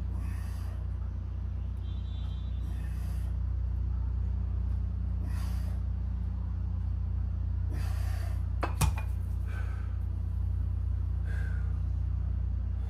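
A person's forceful breaths, about one every two and a half seconds, over a steady low rumble, with one sharp click a little past the middle.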